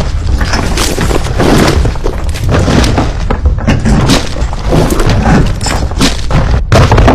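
Heavy ship's anchor chain running out into the sea: a loud, continuous low rumble with an irregular clatter of knocks from the links.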